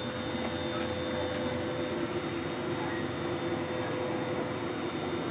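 WOXCKER L8 20 W laser engraver running an engraving pass on wood: a steady mechanical hum and whir from its motors and fans, with several steady high tones over it.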